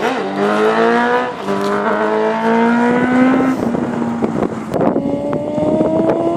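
A 1000cc sport motorcycle engine at full throttle, accelerating hard through the gears. Its pitch climbs steadily in each gear and drops at each upshift.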